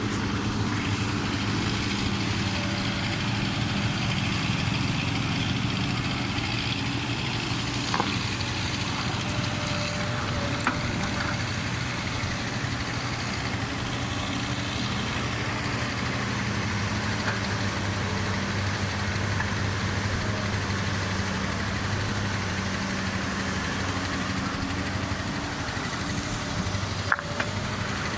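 Komatsu hydraulic excavator's diesel engine running steadily at work, with a few brief sharp knocks.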